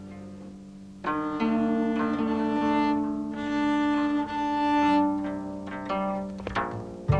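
Cello bowed in long sustained notes, quiet at first and then entering louder about a second in. A quick rising sweep comes near the end.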